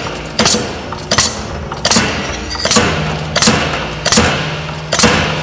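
Graco T1 air-operated piston transfer pump stroking slowly and evenly, about one sharp knock every three-quarters of a second, seven in all, each with a short hiss. It is pumping air into the resin (B-side) line to build an air buffer ahead of the new material.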